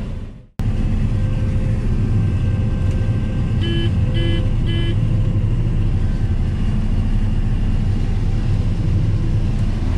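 Combine harvester running steadily, heard from inside the cab, after a brief dropout in the sound near the start. About four seconds in, three short beeps sound, an in-cab warning that fits the grain tank's full sensor.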